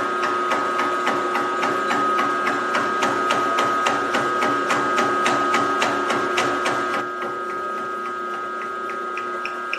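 Slitting saw on a small milling machine cutting a slot through a metal lathe banjo: a steady motor whine with rapid, even ticking, about four ticks a second, as the blade cuts. The cut turns quieter about seven seconds in.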